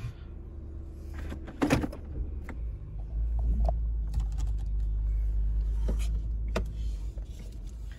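Low rumble of the 2007 Toyota 4Runner's 4.7-litre V8 and drivetrain, heard inside the cabin while driving. It grows louder about three seconds in. A sharp knock comes about a second and a half in, and a few lighter clicks follow.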